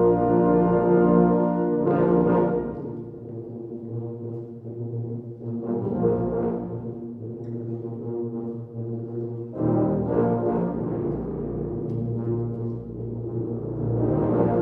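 Tuba and euphonium ensemble playing a fanfare in sustained brass chords. Loud at first, it drops softer about three seconds in, with new swelling entries about six and ten seconds in, and builds again near the end.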